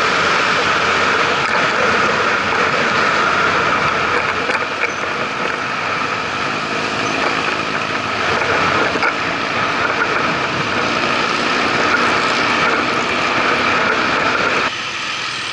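Steady wind and road rush from riding along a road in traffic, with other vehicles' engines running close by. The noise drops a little just before the end.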